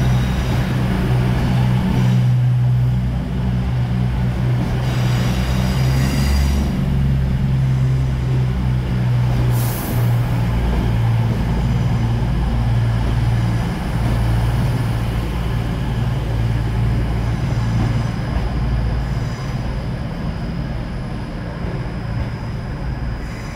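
CrossCountry Voyager diesel multiple unit moving slowly past along the platform, its underfloor diesel engines running with a steady low hum. A few short hisses come in the first ten seconds, and the sound eases slightly towards the end.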